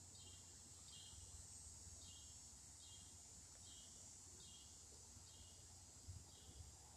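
Near silence: faint outdoor background with a soft, high chirp repeating about every three-quarters of a second, and two small low knocks about six seconds in.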